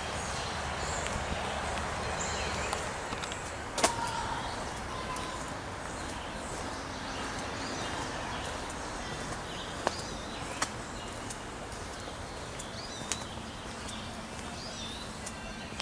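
Scattered bird calls and chirps, clearest near the end, over the broad drone of an airplane overhead that slowly fades. A few sharp clicks or snaps, the loudest about four seconds in.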